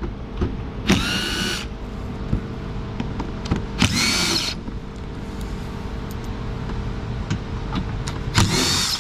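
Cordless drill-driver run in three short bursts, each spinning up quickly to a steady high whine: driving the fender's fastening screws.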